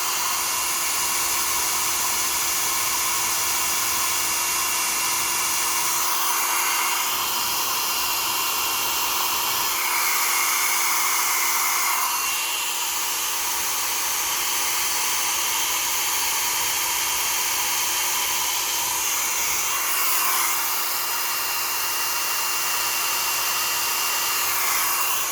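Handheld hot-air blower running steadily, shrinking heat-shrink tubing over a soldered wire joint: a continuous rush of air with a steady hum beneath it.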